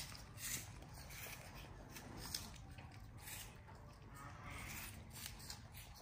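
Baby monkey eating apple: faint, irregular crunching and mouth clicks, a few seconds apart.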